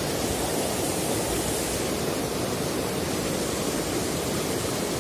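Shallow river rapids rushing over rocks: a steady, even rush of water.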